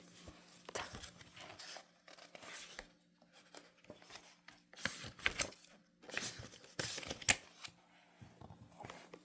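Paper pages of a book being turned and handled: irregular crisp rustles and flicks, a cluster of them about 5 seconds in and again near 6 to 7 seconds.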